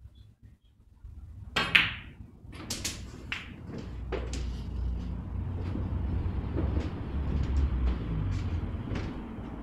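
Snooker balls clicking: a sharp click with a short ring less than two seconds in as the shot is played and the balls collide, then several more clicks over the next two seconds. A low, steady rumble runs underneath.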